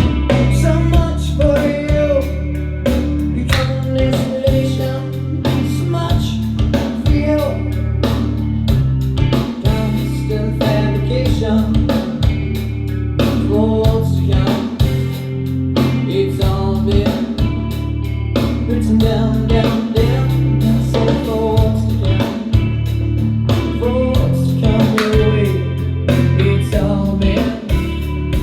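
A rock song with singing, guitar and drums, played back over a pair of KEF hi-fi loudspeakers in a reverberant room. It plays without a break.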